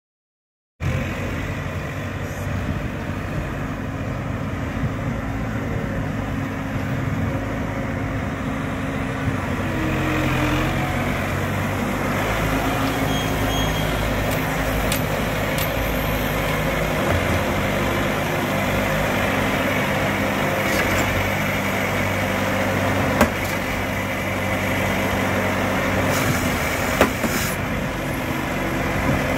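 Small side-loading refuse truck's engine running steadily, starting about a second in, as the truck moves up and its hydraulic arm grabs and lifts a trash can. Two sharp knocks sound near the end.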